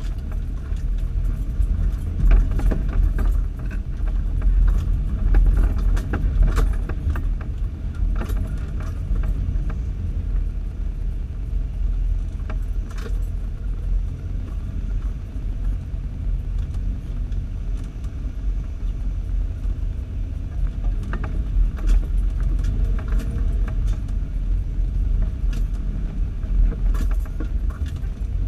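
Off-road 4x4 driving along a rutted, rocky dirt trail, heard from inside the cabin: a steady low rumble of engine and tyres with frequent clicks and rattles as the vehicle bounces over the rough ground.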